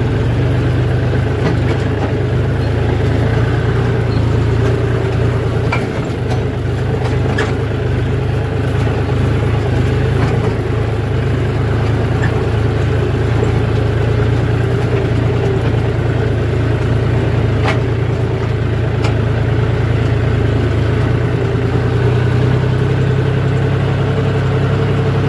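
John Deere tractor's diesel engine running at a steady, constant speed as the tractor drives, heard from the seat, with a few light rattles.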